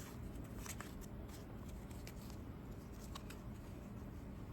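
Pokémon trading cards being handled and slid apart: faint rustling with scattered soft clicks of card edges.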